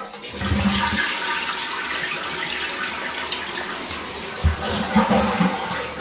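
Toilet flushing: a steady, loud rush of water that eases near the end. Low bumps about half a second in and again later come from the camera being handled.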